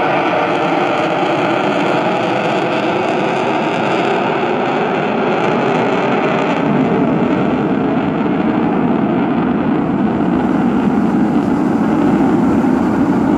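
Steady roar of a distant military jet's engine passing overhead. Its hiss dulls about four seconds in and it turns deeper, as a jet does when it moves away.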